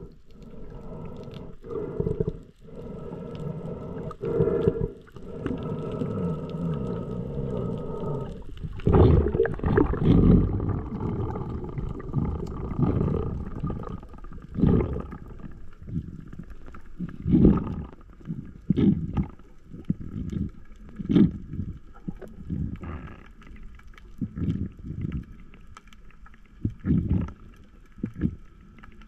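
Underwater sound as picked up by a camera in its housing. For the first eight seconds a steady drone holds several tones; after that, loud irregular whooshing thumps come every second or two over a fainter steady hum.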